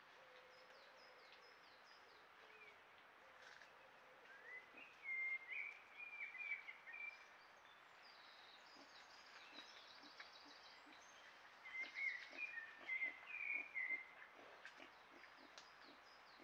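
A songbird singing over a faint steady hiss: two phrases of quick, changing notes, one about a third of the way in and one near three-quarters. Higher chirps from other birds and soft short taps come through between them.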